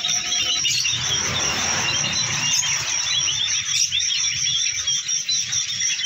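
Small caged songbird twittering softly in a rapid run of short, quick chirps: the quiet 'ngeririk' warble of a bird starting to sing. A steady high-pitched drone runs beneath it.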